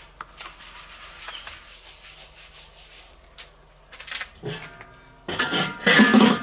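Faint brushing and rubbing on a Weber kettle grill's enamelled steel lid, then the lid is handled and lifted off the bowl, metal scraping and clanking with a ringing tone, loudest near the end.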